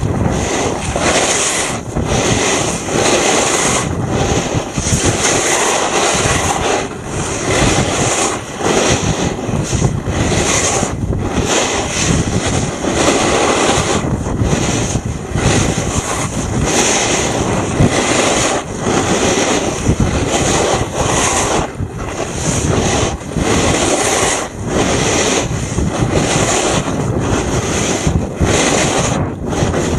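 Loud rushing wind noise on the camera's microphone, mixed with the scrape of a snowboard or skis on man-made snow during a downhill run, and the roar of a snowmaking fan gun spraying snow. The noise dips briefly and irregularly.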